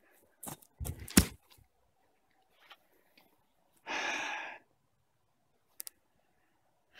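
A heavy thump with a sharp knock about a second in, then a short breathy exhale about four seconds in, with a few faint ticks between.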